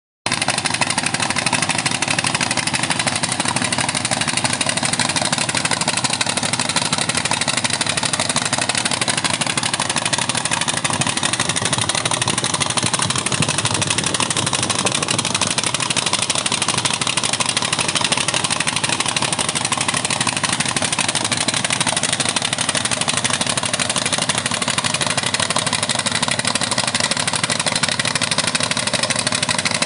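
An engine running steadily at a constant speed, with no revving or change in pace.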